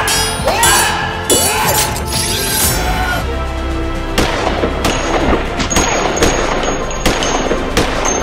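Action-film soundtrack: music under metallic sword clashes that ring and glide in pitch, then a string of sharp pistol shots from about four seconds in.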